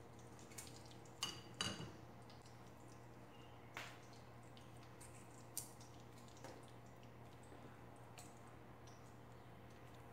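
Whole spices in warming ghee in a non-stick wok, giving a few faint, scattered ticks and small pops over a steady low hum: the ghee is not yet hot enough to sizzle.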